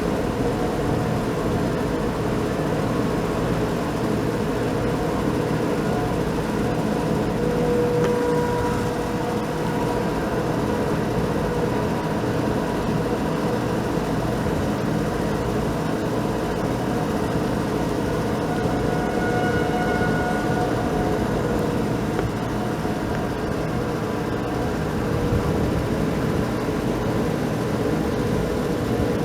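Outdoor warning sirens sounding, heard faintly as tones that swell and fade now and then over a steady low noise.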